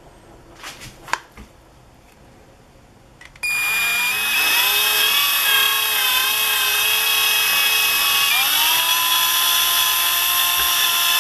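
A few clicks, then about three and a half seconds in an electric drill starts, its motor whine rising as it spins up and then running steady as it turns a dough hook through flour and water. The pitch steps up again about eight seconds in.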